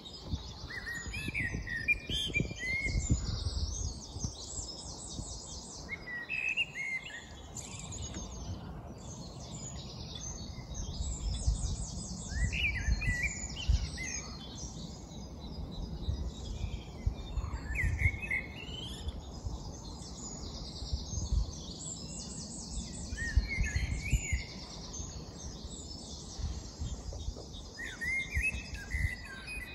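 Songbirds in a dawn chorus. One bird repeats a short song phrase about every five seconds, while others twitter and trill higher and more continuously. Underneath runs a low, gusty rumble.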